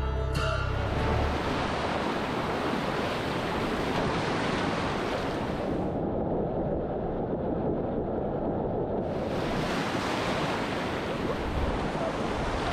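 Ocean surf and breaking waves with wind buffeting the microphone, heard up close from a camera mounted on a surfboard. For about three seconds in the middle the sound turns dull and muffled, its hiss cut away, then comes back full.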